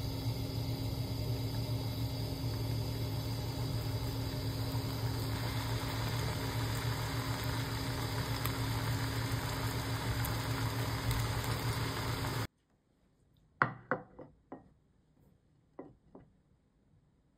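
Sardines simmering in a pan of soy broth, with a steady motor hum over the bubbling. The hum cuts off suddenly. A few sharp clicks and knocks follow as a ceramic plate is set down and handled on a wooden table.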